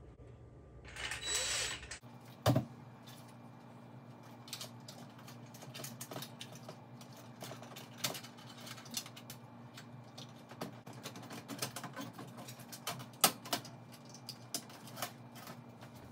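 A cordless drill-driver whirs briefly about a second in, driving a screw into an oven control board's metal bracket. Then comes a long run of clicks and knocks as the plastic-cased main control board is fitted into place and its wire connectors are pushed on.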